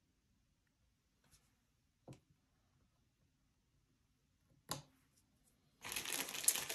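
A few faint small clicks, then, near the end, a plastic bag of glass teardrop crystals rustling and crinkling loudly as it is handled.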